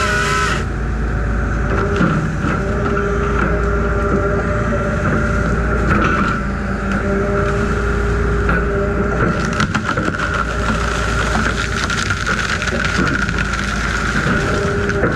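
Heavy machine working a grapple saw, its engine and hydraulics running steadily with a high whine over a low rumble. A burst of sharp cracks comes about nine to ten seconds in.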